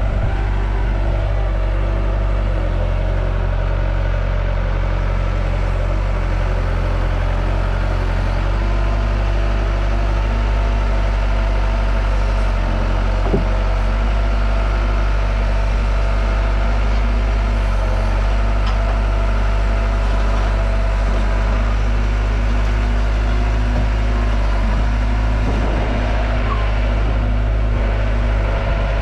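Diesel engine of a compact construction machine running steadily, with a single light knock about halfway through.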